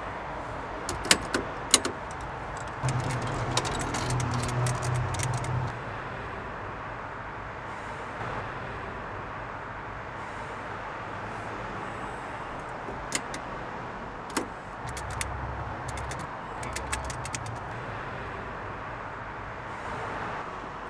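Street traffic ambience, with vehicles rumbling past twice, and scattered sharp clicks, the two loudest about a second in.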